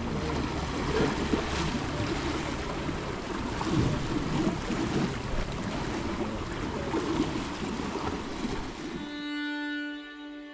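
Wind buffeting the microphone over the wash of the incoming tide across the flats. About nine seconds in it cuts off abruptly and slow violin music begins.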